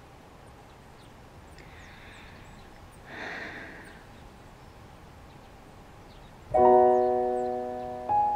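Quiet background hiss, then a piano chord from the score, struck about two-thirds of the way in and left to ring and fade, with another note near the end.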